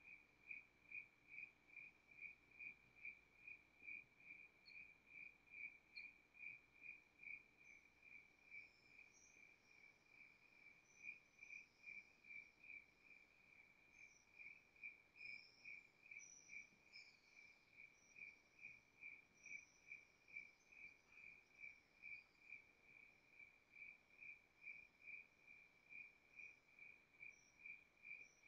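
Faint cricket chirping in a steady, even rhythm of a couple of high-pitched chirps a second. In the middle, a few fainter, higher chirps from other small animals come in and out.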